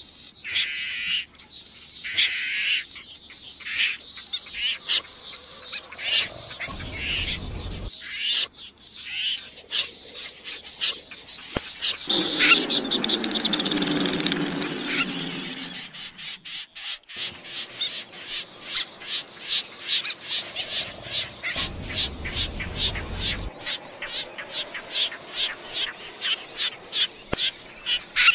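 Recorded snipe calls: short, sharp, high call notes, scattered at first, with a louder, fuller calling stretch around the middle. In the last third they settle into a fast, even run of chips at about four a second.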